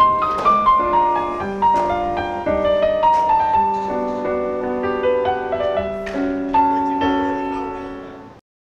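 Solo piano music playing a melody over held chords, fading out to silence near the end.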